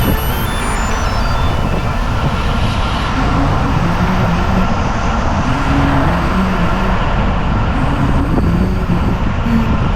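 Steady rush of wind and road noise from a moving vehicle on the ride, with a faint low hum that wavers in pitch. A music track's stepped tones fade out in the first second or so.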